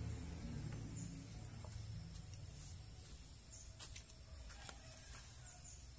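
Steady high-pitched insect drone over faint outdoor ambience, with a few light clicks and short faint chirps near the middle. A low rumble fades away over the first couple of seconds.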